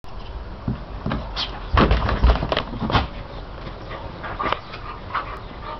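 Siberian huskies playing in the snow: short dog vocal sounds among scuffling, with a run of loud thumps about two to three seconds in.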